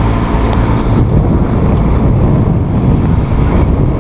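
A small sailboat's motor running steadily as it motors along, mixed with wind rumbling on the microphone.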